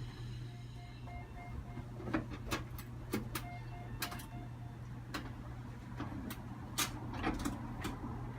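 Irregular sharp clicks and knocks over a steady low hum, with two short runs of quick electronic beeps, one near the start and one around the middle.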